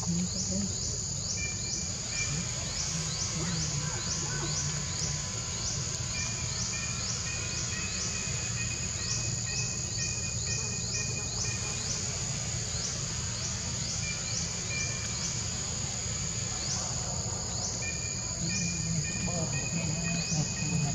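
A chorus of insects buzzing on a steady high note, with a short rising chirp repeating a little over twice a second and a thinner intermittent whistle-like tone below it.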